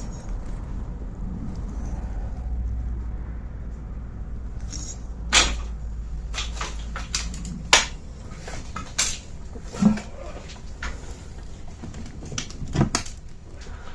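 Scattered sharp knocks and clicks of hard objects being handled and moved, about half a dozen, the loudest near the middle, over a low steady rumble in the first few seconds.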